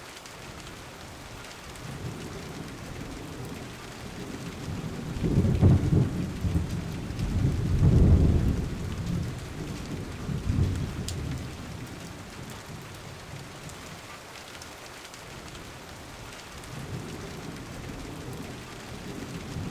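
Steady rain, with rolling low rumbles of thunder that swell about five seconds in, peak around six and eight seconds, and die away by about eleven seconds.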